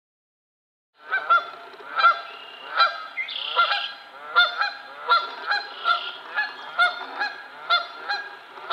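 Canada goose honking over and over, about two honks a second, starting about a second in.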